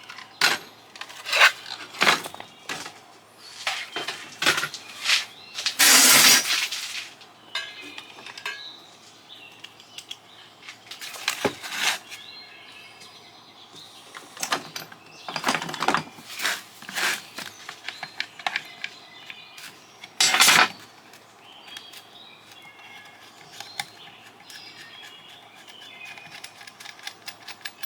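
A satellite LNBF's metal and plastic parts being taken apart by hand: scattered clinks, clanks and knocks, with a louder harsh crunch lasting about a second some six seconds in.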